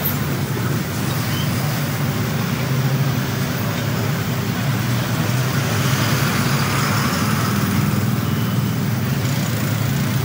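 Steady road traffic passing close by: trucks and a motorbike driving past, with a continuous low engine rumble and tyre noise.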